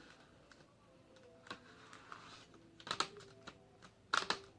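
Plastic laptop screen bezel being pressed on by hand, its clips snapping into place: a few scattered sharp clicks, louder and closer together near the end.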